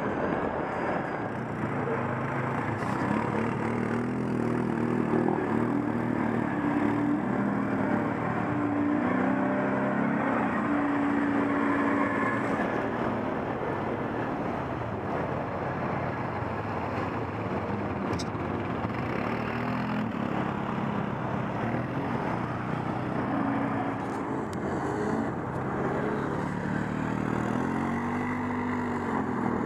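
ATV engine running while riding, its pitch shifting with the throttle and rising and falling several times in quick revs near the end.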